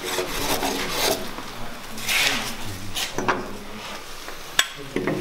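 Irregular knocks and clatter of wooden wedges and a spirit level being handled and set on a timber beam, with one sharp knock about four and a half seconds in.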